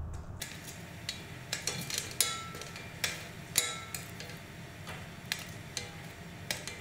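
Metal tongs clicking against a metal sheet tray and the rim of a stainless stockpot as pieces of roasted fish bone are picked up and dropped into the pot for a fish stock. Irregular sharp clicks, some ringing briefly.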